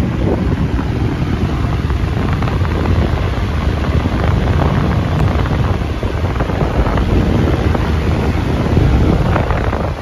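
An 18-inch Universal wall fan running, its airflow blowing straight onto the microphone as loud, rough wind noise.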